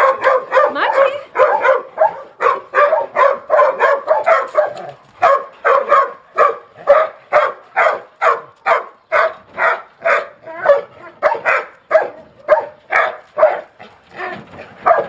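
Dogs barking in a fast, unbroken run, about three barks a second, the barks crowding together more thickly in the first few seconds.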